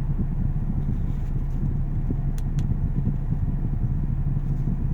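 Steady low mechanical hum, with two faint light clicks about two and a half seconds in.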